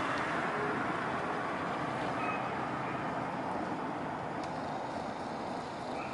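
Steady road traffic and vehicle engine noise, an even rumble and hiss that fades slightly over the seconds. A faint short high tone sounds twice, about two seconds in and near the end.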